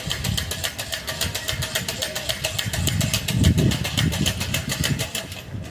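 Rapid, even clattering at about eight clicks a second that stops abruptly near the end, over an uneven low rumble that swells about halfway through.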